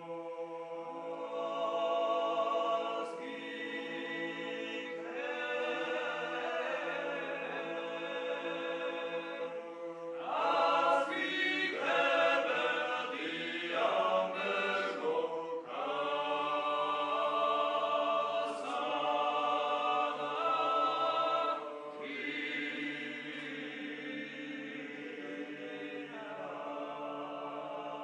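Male vocal ensemble singing a Georgian polyphonic song a cappella: a low held drone under moving upper voices. The singing grows fuller and louder about ten seconds in and eases back after about twenty-two seconds.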